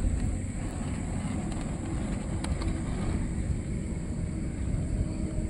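Steady low rumble of outdoor background noise, with no distinct event in it.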